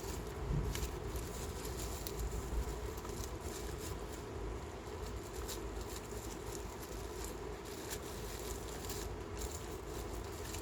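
A small machine running steadily, with irregular light ticks and scratching over the hum.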